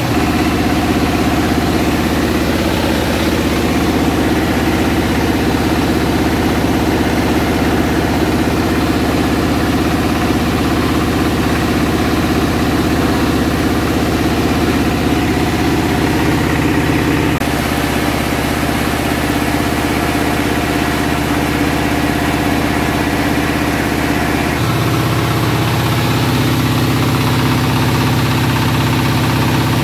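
An engine-driven rice milling machine running steadily while milling paddy, making a continuous loud mechanical hum. The tone of the hum shifts abruptly twice, past the middle and near the end.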